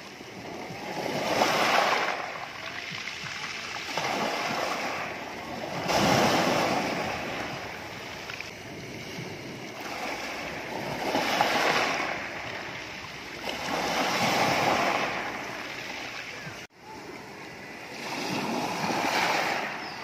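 Small sea waves breaking and washing over a pebble beach, the surf swelling and falling back every few seconds. The sound cuts out for an instant late on.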